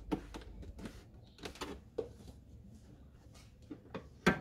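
Irregular light clicks and taps of handling, with one sharper knock near the end.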